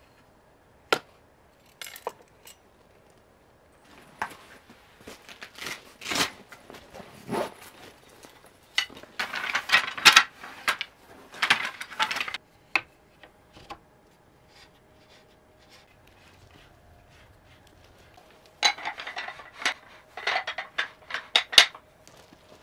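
Handling and assembling a folding wooden clothes rack: wooden slats and poles clacking and knocking together, with stretches of rustling as the parts are unwrapped from a cloth cover. A few light knocks near the start as a brass lantern is set down on a wooden shelf.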